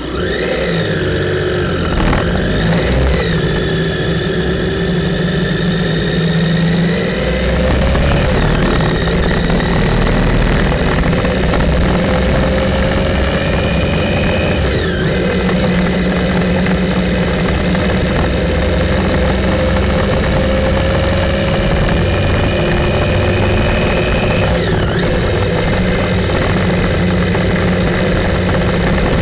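Motorcycle engine pulling away and accelerating through the gears: its pitch climbs slowly, then drops sharply on an upshift about halfway through and again near the end.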